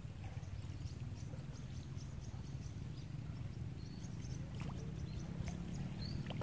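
Riverbank ambience: a steady low rumble with rapid high-pitched chirps, about four a second, and a thin steady high whine above them.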